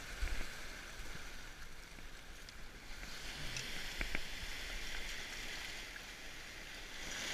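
Small sea waves washing in over a rocky, pebbly shore: a steady hiss of foaming water that swells about halfway through, with a couple of small knocks.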